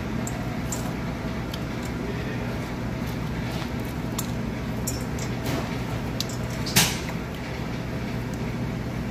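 Steady hum of commercial kitchen equipment, with light clicks and taps of food and utensils being handled at the prep counter and one sharper clack about seven seconds in.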